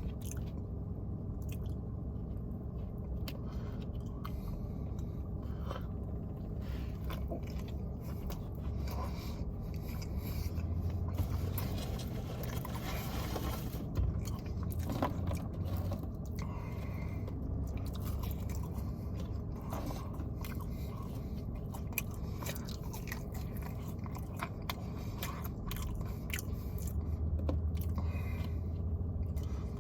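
A person biting and chewing McDonald's food, with many small wet clicks and crunches over a steady low hum.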